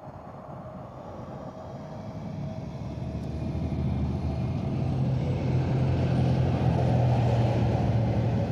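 A heavy motor vehicle's engine, such as a truck's, running with a steady low hum and growing steadily louder over the first five seconds or so, then holding loud.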